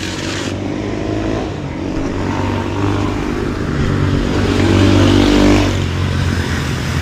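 A motor vehicle engine running, growing louder to a peak about five seconds in and then dropping away.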